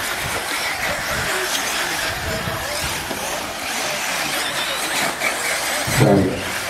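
Radio-controlled off-road racing buggies running on a dirt track, their small engines making a steady buzz with wavering whines as they rev. A louder, lower sound swells briefly near the end.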